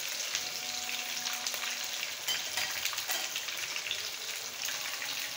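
Marinated fish pieces deep-frying in hot oil: a steady sizzle with many small pops and crackles.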